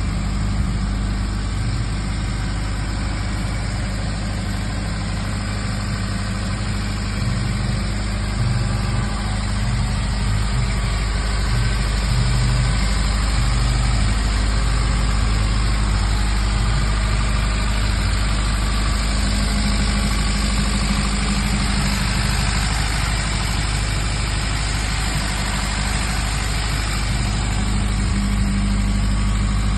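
Small four-cylinder side-valve engine of a 1940s Ford 8 van idling steadily.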